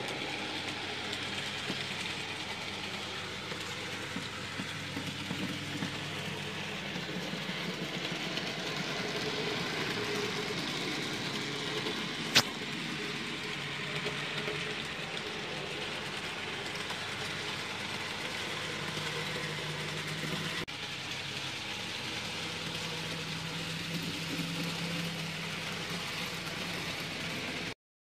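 N gauge model trains running on the layout: a steady whirr of small electric motors and wheels on the rails, with faint hums that shift in pitch, and one sharp click about twelve seconds in. The sound cuts off just before the end.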